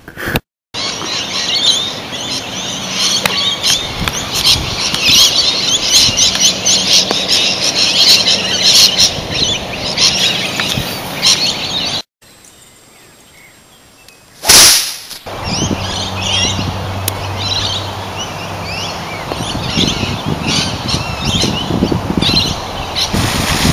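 Many birds chirping and calling on a golf course, the song cut off abruptly about 12 seconds in and picking up again soon after. About two and a half seconds after the cut comes one loud, sharp strike, a golf club hitting a shot out of a sand bunker.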